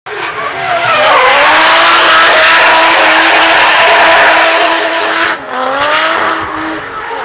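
Drift car's engine held at high revs while its rear tyres screech loudly, sliding sideways through a corner in a cloud of tyre smoke. A little over five seconds in the screech drops away and the engine pitch rises again.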